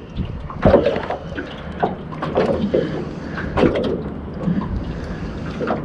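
Irregular knocks and clatter of fishing gear being handled on a small boat while a hooked squid is reeled in on a jig, over a steady background hiss.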